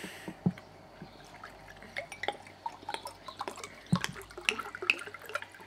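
Ricard pastis being poured from a 1.5-litre bottle into a tall glass, in irregular glugs and splashes with a few sharper knocks.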